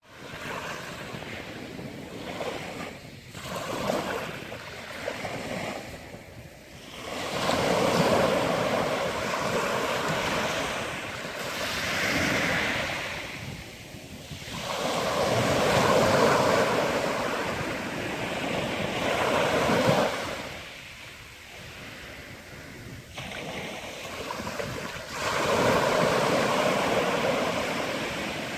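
Sea waves breaking on a rocky Mediterranean shore, the surf swelling and falling back every four seconds or so.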